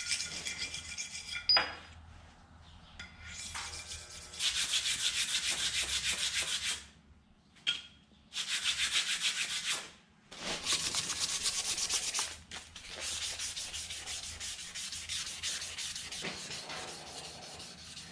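Hand scraping and rubbing strokes on a flat tooling slab as clay and epoxy gunk is worked off it, in runs of two to five seconds broken by short pauses. A single sharp clink about a second and a half in.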